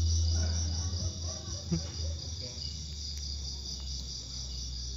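Crickets chirping in a steady pulsing trill over a low hum.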